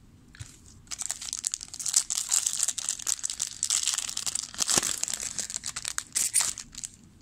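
Foil wrapper of a 2007 Upper Deck football card pack being torn open and crinkled by hand: a dense crackling that starts about a second in and stops shortly before the end.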